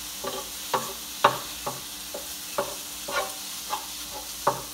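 A spatula scraping and tapping against an electric skillet, about twice a second, as ground beef is stirred and chopped up, over the light sizzle of the browning meat.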